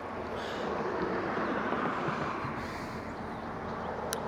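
Road traffic: a vehicle passing on the road, its engine-and-tyre noise swelling steadily louder, with one sharp click near the end.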